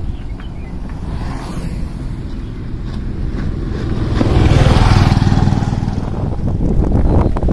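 Steady low rumble of riding along a road. A truck passes close by, its noise swelling to the loudest point about four to five seconds in.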